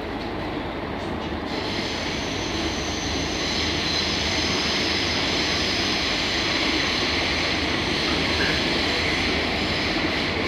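Train running noise heard from inside the carriage: a steady rumble of wheels and running gear that grows louder over the first few seconds and then holds, with a high whine coming in about a second and a half in.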